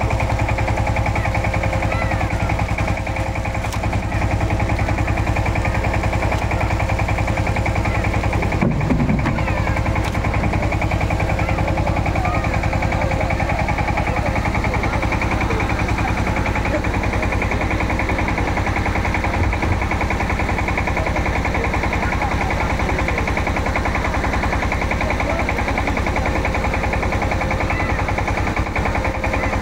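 A fishing boat's engine running steadily at idle, with a fast, even beat that does not change.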